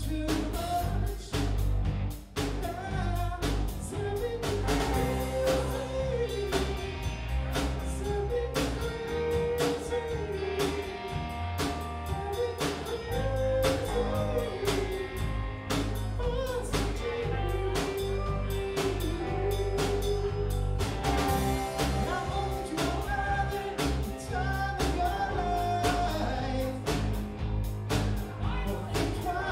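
Live rock band playing a song: a lead vocal sings a melody over a drum kit beat and a low bass line that moves in steps.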